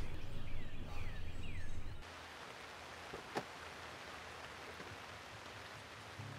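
Outdoor ambience with a low rumble and a few short, falling bird chirps. About two seconds in it cuts abruptly to a steady hiss of rain, with a single sharp tick a little over a second later.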